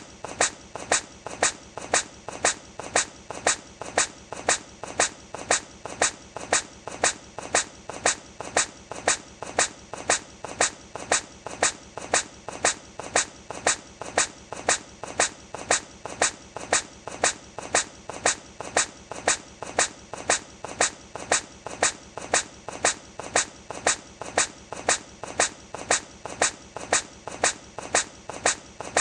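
A hedgehog sneezing: the same short, sharp sneeze repeated over and over at an even pace of just under two a second, as an edited loop.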